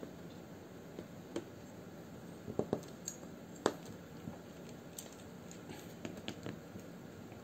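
Scattered light clicks and taps from handling mechanical keyboard parts while fitting foam into the case, about a dozen short knocks spread irregularly.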